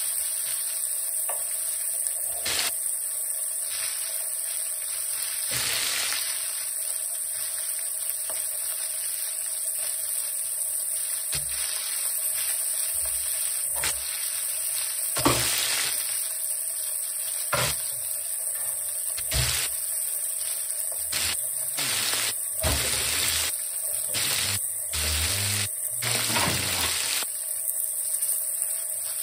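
Breaded Black Sea gobies frying in hot oil in a pan: a steady sizzle with scattered spitting pops, which come more often in the last third.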